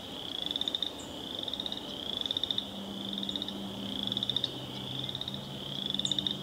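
A chorus of frogs trilling: high, rapid pulsed trills about a second long, repeating steadily, each swelling in loudness.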